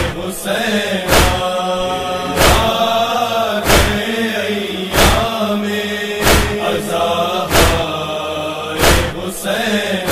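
A Muharram noha, an Urdu lament for Husain, chanted by a single voice over a steady beat that falls about every second and a quarter.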